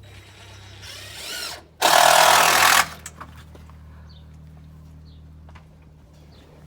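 Power drill driving a screw into wood: a short rising whine as it spins up, then about a second of loud running as the screw goes in.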